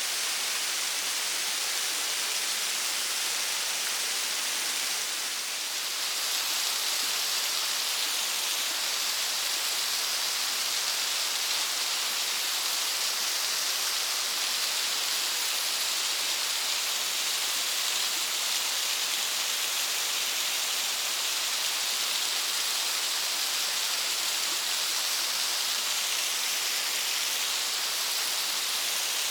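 Kiyotaki waterfall on Mount Ontake pouring steadily: an even rush of falling water, a little louder from about six seconds in.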